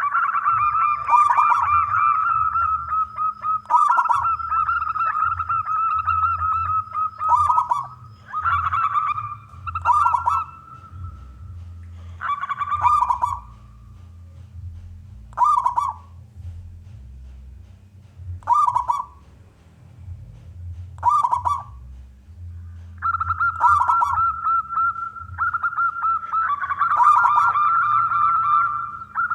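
Zebra dove (perkutut) cooing: long rolling runs of coos at the start and again near the end, with single short coos every few seconds in the middle.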